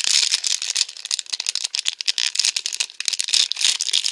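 Shiny plastic blind-bag wrapper crinkling and crackling in the hands as it is worked open, a dense run of rapid crisp crackles.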